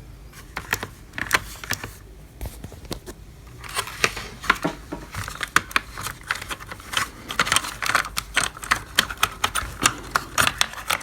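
Rapid, irregular clicks and taps of hard plastic parts being handled and taken apart inside an opened Dolce Gusto Genio S Plus capsule coffee machine. They grow busier from about four seconds in.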